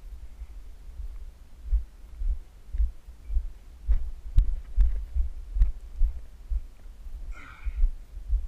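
Dull low thumps about two a second, the wearer's footsteps carried through a body-worn camera as he walks, with a few sharp clicks near the middle.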